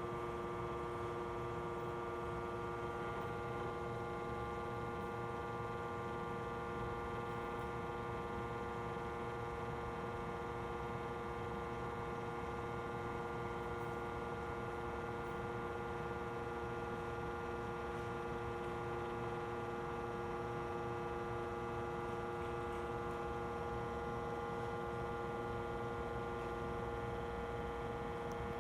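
Okuma GCU 300 cylindrical grinder running with a steady hum made of several held tones while its table traverses slowly for an indicator check.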